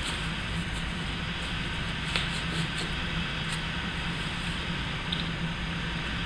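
Steady low background hum, with a few faint light clicks of small parts being handled.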